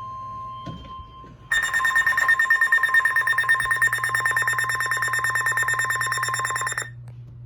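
Emergency alert broadcast tones: a steady high beep that stops about a second in, then a harsh, rapidly pulsing electronic buzz of alert data tones lasting about five seconds before cutting off suddenly.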